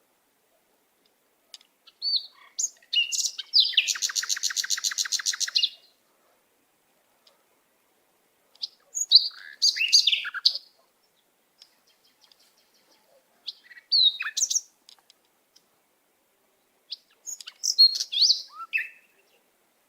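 A bird singing in four separate phrases of high chirps and whistles, a few seconds apart. The first phrase ends in a fast, even trill of about ten notes a second that lasts about two seconds. Between the phrases there is silence.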